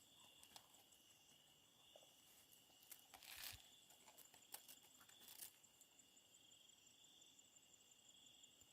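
Faint, steady chirring of insects in the background, with a few soft rustles midway through.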